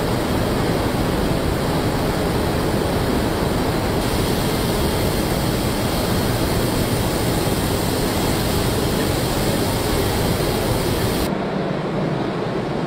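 Steady rushing noise of a robotic car-body paint booth. About eleven seconds in it cuts abruptly to a duller, lower factory hum.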